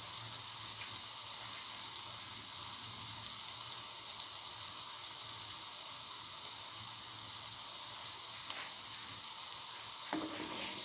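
Chickpea and potato fritters deep-frying in hot oil in a pan: a steady sizzle with small crackles. Near the end a slotted metal spoon goes into the pan with a light knock.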